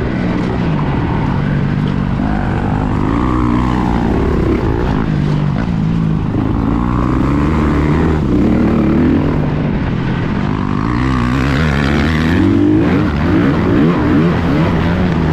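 Dirt bike engine under hard riding on a motocross track, revving up and dropping back again and again as the rider throttles and shifts.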